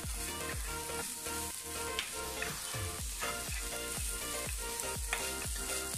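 Grated coconut, sugar, cashews and raisins sizzling in ghee in a nonstick pan and stirred with a spatula, over background music with a steady beat of about two beats a second.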